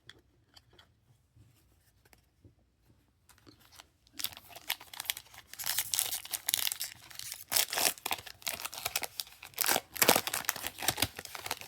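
Foil wrapper of a Topps Chrome Update trading-card pack being torn open and crinkled. It starts about four seconds in, with faint handling clicks before it.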